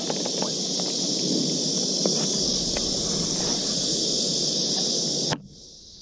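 Outdoor ambience at the water's edge: a steady high hiss with scattered light clicks and rustles. It cuts off sharply about five seconds in.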